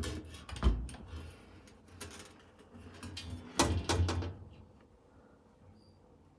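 A series of knocks and clunks, like a door or drawer being handled. The loudest comes about two-thirds of a second in, and a cluster follows around three and a half to four seconds in, then it goes quiet.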